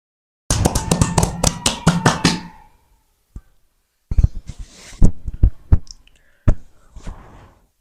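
Percussive hand massage: a quick run of about eight sharp slaps or chops, about four a second. After a pause come a scattered series of heavier thumps and knocks.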